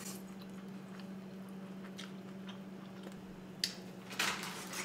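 Soft chewing and mouth sounds of people eating grilled beef and lettuce wraps, with a few small clicks and a low steady hum underneath.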